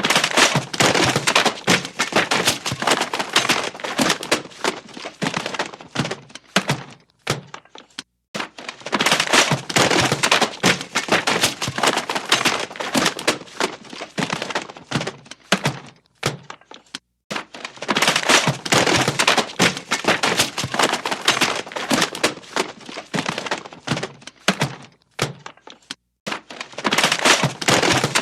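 Clumsy crash sound effect: a long tumbling clatter of things knocking, cracking and breaking as they fall. It plays in runs of about seven seconds, repeated with short silent gaps between them.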